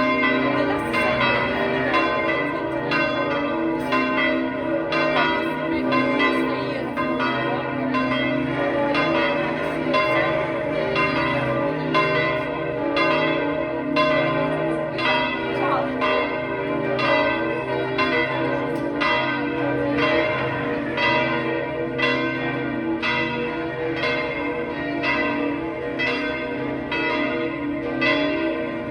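St Peter's Basilica's great bronze bell, recast in 1786, ringing in full swing. It strikes about once a second, each stroke's long ringing tone running into the next.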